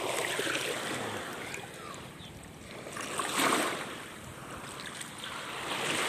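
Small waves washing up onto the sand at the water's edge, the wash swelling and fading twice.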